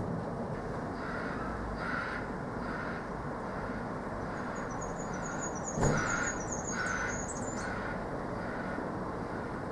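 A crow cawing repeatedly over a steady background noise, with a small bird's quick high chirps in the middle and a single sharp knock about six seconds in.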